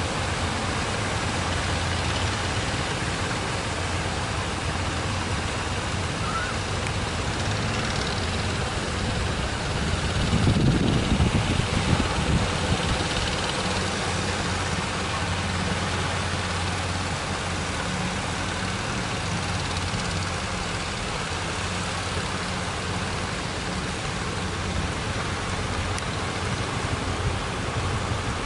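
Boat engine running steadily with a low hum over the hiss of surf, swelling louder for a couple of seconds about ten seconds in.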